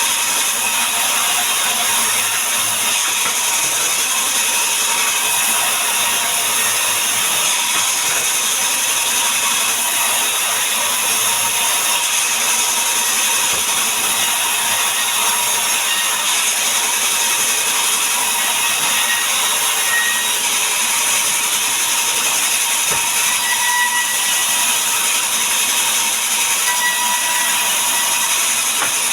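Power saw running steadily while cutting wood, an even hissing noise with a faint whine.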